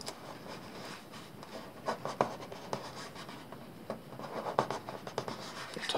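Hands handling stickers and rubbing them down onto a plastic ATV body panel. It makes faint rustling and scratching, with scattered small clicks.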